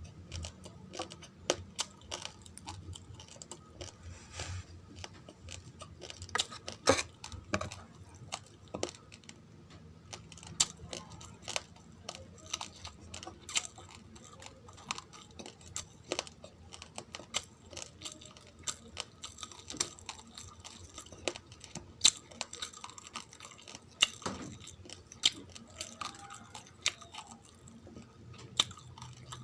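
Close-miked chewing of raw, uncooked rice grains: many sharp, irregular crunches, a few of them much louder than the rest.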